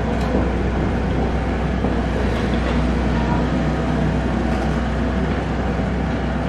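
Komatsu PC78US mini excavator's diesel engine running steadily as the machine works its boom and bucket in a ditch.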